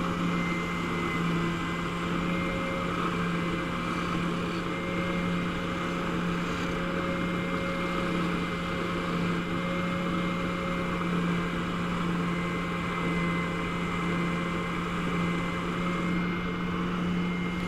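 Band saw running with a steady motor hum while slowly cutting through a board.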